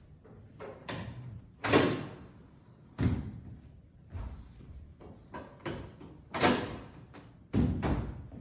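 Telescoping bleacher rows clanking and banging as they are pushed and locked by foot: about nine sharp metal knocks at uneven intervals, each ringing on briefly in the hall.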